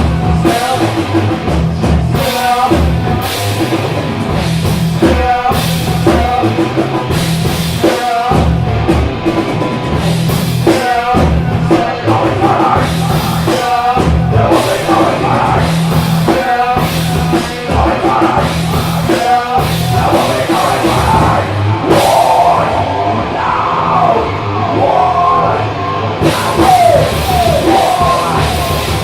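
Live rock band playing loudly: a drum kit keeps a steady beat under heavy rock instruments, with singing at times.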